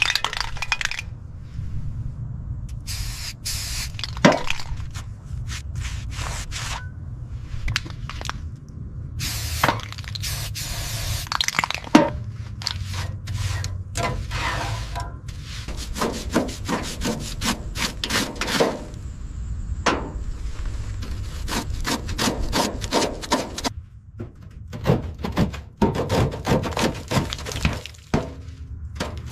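Workshop work noise: repeated scraping and rubbing strokes with many knocks and clicks over a steady low hum.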